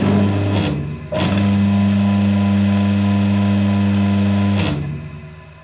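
Pressure washer's single-phase electric motor, now fitted with a 65 µF capacitor, switched by a contactor: a click and a steady hum, cut off with a click after about half a second, then clicked on again about a second in and humming steadily for about three and a half seconds before a click and a fade as it runs down. With the capacitor in place it starts and spins in the intended direction.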